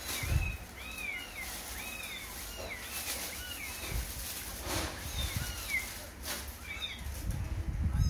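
Kitten mewing over and over: short, high calls that rise and fall, two or three a second, with a few low thumps, the loudest near the end.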